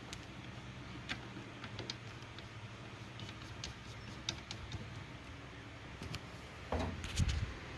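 Scattered light clicks and handling noise over a steady low hum, with a louder rustling knock about seven seconds in.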